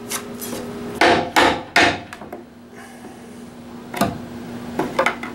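Hammer striking a Japanese chisel to chop out a notch in a maple board: three sharp blows in quick succession about a second in, then three more, the first loud and the next two lighter, around four to five seconds in.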